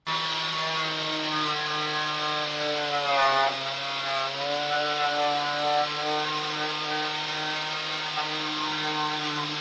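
Angle grinder running against the rusty sheet-steel boot floor, a steady high motor whine over rough grinding noise. About three seconds in the pitch sags for a moment as the disc is pressed harder, then climbs back.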